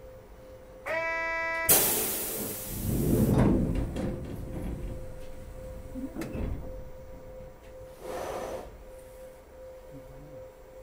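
Sapporo streetcar M100-type M101 at a stop: a short electric door buzzer sounds about a second in, then a loud burst of compressed-air hiss and the low rumble of its air-operated doors working. A second, shorter air hiss comes near the end, over a steady hum.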